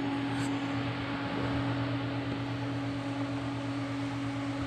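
Steady machine hum: a constant low drone over an even hiss, the room tone of a working shop.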